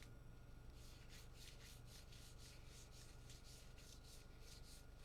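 Baseball trading cards slid one after another off the top of a pack, a faint run of soft swipes about three a second.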